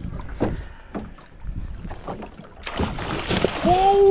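A large northern pike thrashing and splashing at the side of an aluminum boat as it makes another run, with scattered knocks and wind on the microphone. There is a big splash about three seconds in, then a man's long, drawn-out shout of surprise near the end.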